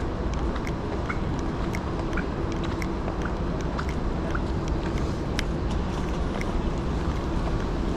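Steady rain on a city street, with many small drops ticking irregularly, over a low rumble of street traffic.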